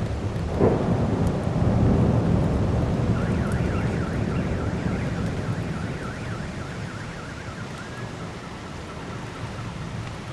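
A close thunderclap cracks about half a second in, then rolls into a low rumble that fades over several seconds, over steady heavy rain. From about three seconds in, a warbling electronic alarm tone wavers up and down for several seconds.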